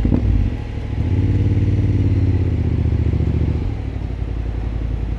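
Motorcycle engine starting up close by. It catches at once, runs at a higher idle for a couple of seconds, then settles into a steady, slightly quieter idle.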